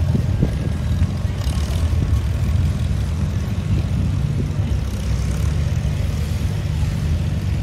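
Farmall tractor's engine running steadily at low speed with an even drone, as the tractor drags a tire through a cone course.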